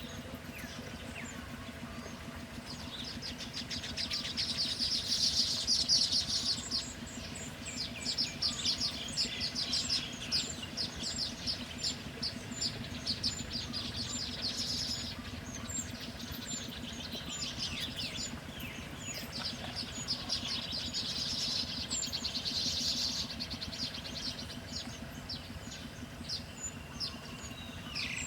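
Small songbirds chirping in quick high runs that come in bouts and swell louder three times. A steady low hum runs underneath.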